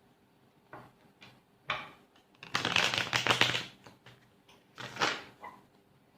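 Tarot cards being handled: a few single card slaps and clicks, then a burst of rapid flicking and clattering about two and a half seconds in that lasts about a second, and one more slap near the end.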